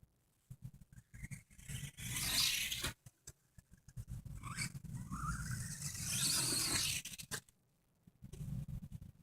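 Toy RC car's small electric motor running in stop-start bursts, with scraping and rubbing from the wheels and body. The longer burst about halfway through has a rising whine.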